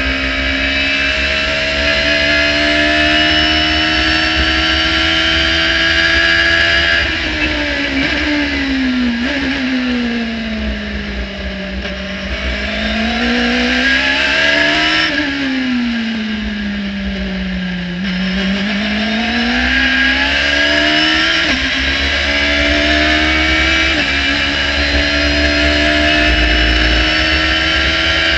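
Radical SR3-RSX race car engine under load, heard from the cockpit. Its pitch climbs through the gears with short breaks at each shift, falls twice as the car brakes and changes down for corners, then climbs again toward the end.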